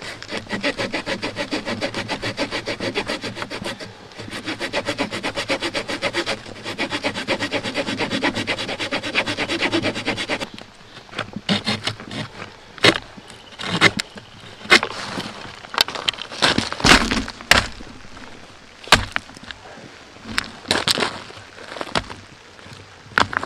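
A small hand saw cutting through a dry branch in quick, steady back-and-forth strokes, with a short pause about 4 s in. The sawing stops about 10 seconds in, giving way to separate sharp cracks and knocks of wood and stones.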